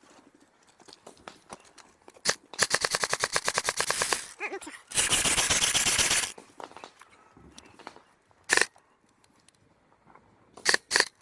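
Airsoft guns firing. A single shot is followed by a full-auto burst at about ten shots a second, then a second, denser burst lasting over a second. After that come a lone shot and two quick shots near the end.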